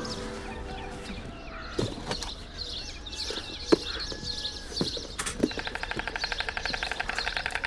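Small birds chirping, with a few sharp single knocks, the loudest just before four seconds in. From about five seconds in comes a fast, even rattle.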